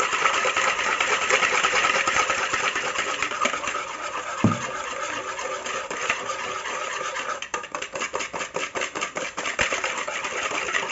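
Wire whisk stirring eggs and granulated sugar in a plastic bowl, a continuous scraping swish that turns into quick, regular strokes in the second half. The batter is being mixed just to combine, not beaten to add air.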